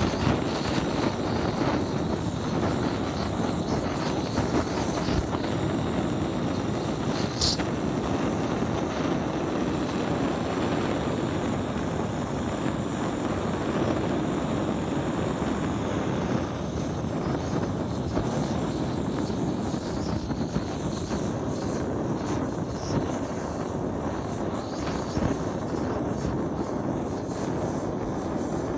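Hand-held gas blowtorch burning steadily, its flame charring a wooden hammer handle (shou-sugi-ban); one sharp click about seven seconds in.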